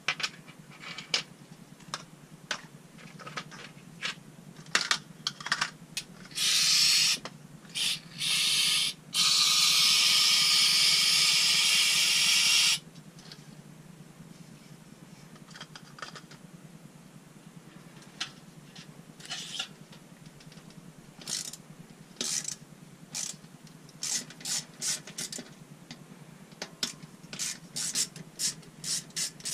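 Aerosol spray can hissing in three bursts, two short ones and then one held for about three and a half seconds that cuts off sharply, amid scattered light clicks and taps of parts being handled.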